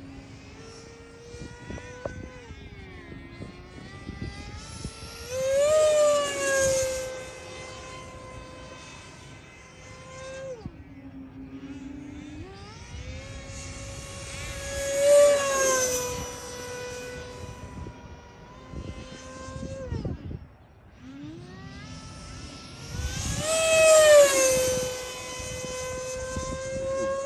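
E-flite Viper 90mm electric ducted-fan RC jet flying past three times, a high whine that swells loud on each pass with its pitch rising and then dropping, about nine seconds apart.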